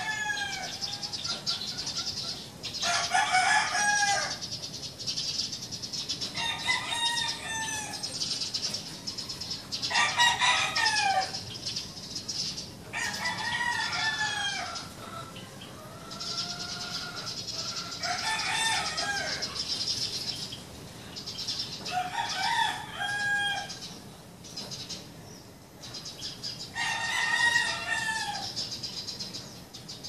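Roosters crowing again and again, about eight crows at intervals of three to four seconds.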